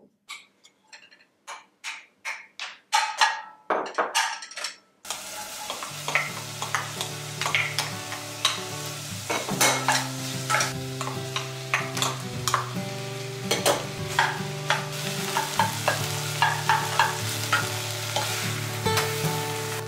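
A run of light knocks for about five seconds, then bacon, mushrooms and onions start to sizzle suddenly in an enamel saucepan over low heat, with a wooden spoon stirring and scraping through them in repeated strokes.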